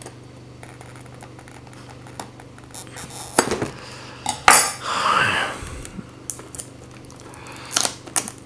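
Cardboard figure box being handled and its end flap worked open: scattered clicks and taps, with a louder scrape and rustle of the box and its plastic packaging about halfway through.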